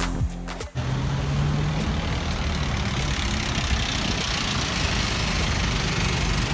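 Music cuts off under a second in, giving way to busy street traffic: a truck's engine running as it passes close by, over steady road noise.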